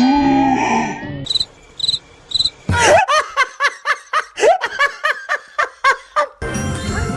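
Three short high chirps, then a long run of quick, high-pitched laughing syllables, about five a second.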